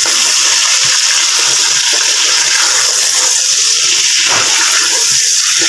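Raw chicken pieces sizzling hard in hot oil in a metal pot, a steady loud hiss, while a silicone spatula stirs them with a few soft scrapes and knocks.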